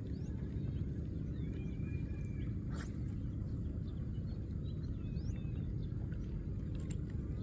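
Birds calling outdoors: short chirps and rising calls, with one held whistle about two seconds in. Beneath them runs a steady low rumble. A sharp click comes near three seconds in and another near the end.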